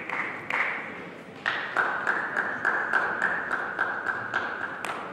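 Table tennis ball striking bats and table: a quick, even series of light taps, speeding up to about three or four a second after the first second and a half.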